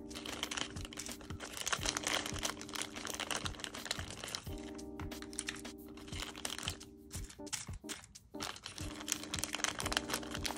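Soft background music with sustained chords that drop out twice, over steady crinkling and clicking of plastic nail tips being handled and sorted by size.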